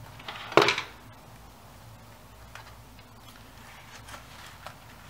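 Handling noise at a worktable: a short clatter about half a second in, then a few faint light clicks as a paper-strip sculpture and a hot glue gun are handled.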